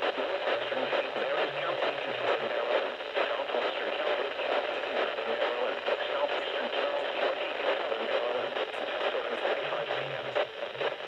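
Weak radio reception of an Emergency Alert System broadcast: dense static and hiss with a voice faintly audible underneath, all narrow and muffled with no high end.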